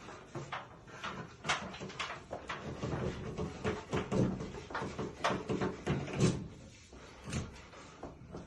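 Electrical cable being pulled through a tight hole in the ceiling framing: irregular knocks, scrapes and rustling as the cable and draw cord drag and catch, thickest in the middle and thinning out near the end.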